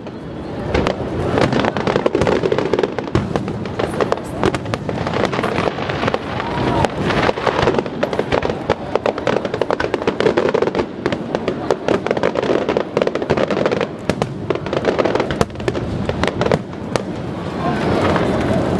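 Fireworks display: aerial shells bursting in rapid, continuous succession, with many bangs and dense crackling.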